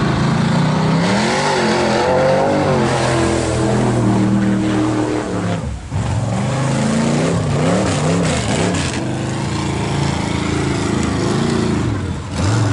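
Ford Ranger-bodied mega mud truck's engine revving hard while the truck plows through a mud bog, its pitch climbing and falling with the throttle and swinging up and down several times in quick succession around the middle, over a steady hiss of spraying mud and water.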